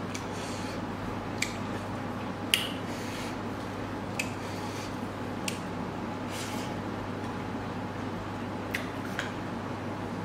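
Close-up eating sounds of food eaten by hand: soft wet squishing and chewing, with several short sharp clicks, over a steady low hum.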